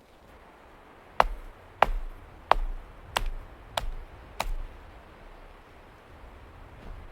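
Six sharp chopping strikes, evenly spaced about two thirds of a second apart, each with a low thud.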